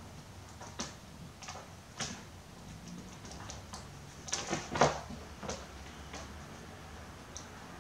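Two kittens play-fighting on an upholstered armchair: scattered scratches and soft knocks of claws and paws on the fabric, busiest about four to five seconds in.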